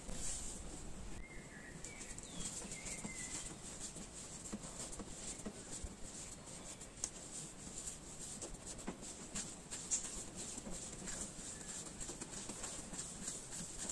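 A piece of yeast dough being rolled and rounded into a ball under the hand on a smooth worktop: soft, irregular sticky taps and rubbing.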